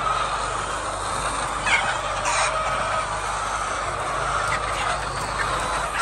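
A large flock of laying hens clucking and calling together, a steady dense chorus with a couple of louder calls about two seconds in.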